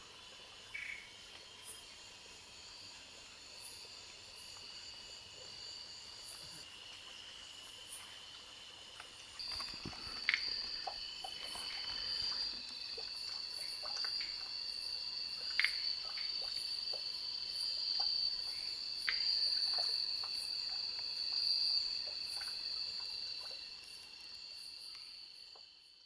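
Night insect chorus: a steady high-pitched trill with short chirps and clicks over it. It grows louder about ten seconds in and fades out at the end.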